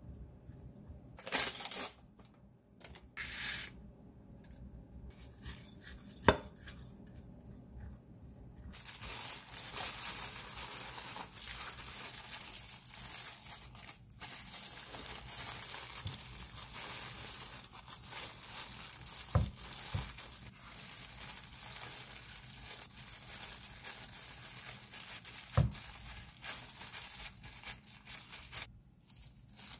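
A plastic rice paddle stirring rice in a glass bowl, with a sharp knock about six seconds in. From about nine seconds in there is steady crinkling of disposable plastic gloves as hands pull apart aged kimchi leaves and press rice onto them on a wooden cutting board, with a few soft thuds.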